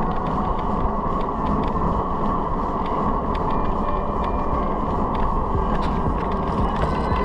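Steady low rumbling noise of a slowly moving car.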